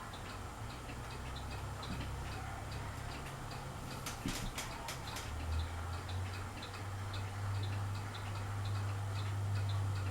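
Fasco Charleston ceiling fan running, a low motor hum with a regular light tick about twice a second. A few sharp clicks come about four to five seconds in.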